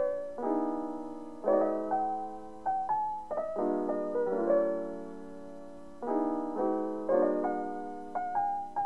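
Background piano music: a gentle melody of single notes and chords, each struck and left to ring and fade.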